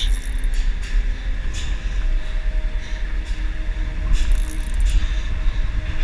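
Fishing reel on a bent jigging rod during a fight with a hooked fish, giving short, irregular metallic bursts every half second to a second, over a steady low rumble.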